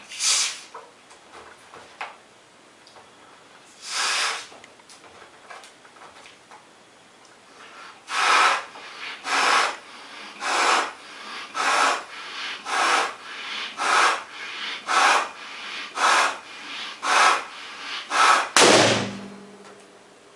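Blowing up a 16-inch pearl purple latex balloon by mouth: a couple of breaths, then regular breaths about one a second from about eight seconds in, until the overinflated balloon bursts with a loud pop near the end.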